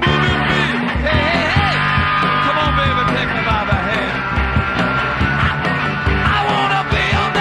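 Live punk-rock band playing loud: electric guitars, bass and drums, with a singer's voice over them.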